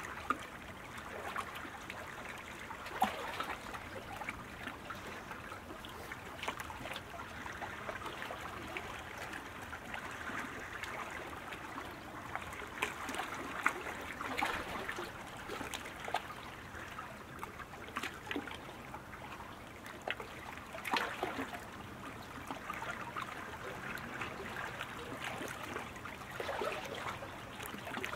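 Water lapping around K1 sprint kayaks as they hold position at the start, with small irregular splashes.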